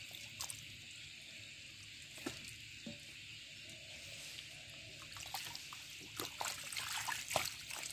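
Shallow muddy water trickling through a fishing net, a steady soft hiss, with scattered small splashes and clicks that become busier over the last few seconds.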